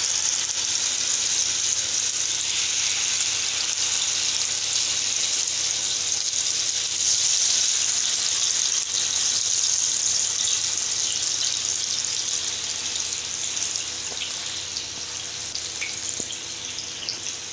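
Masala-coated mullet pieces sizzling in hot oil in a pan as they are laid in one by one for shallow frying. A steady, loud hiss that eases a little near the end.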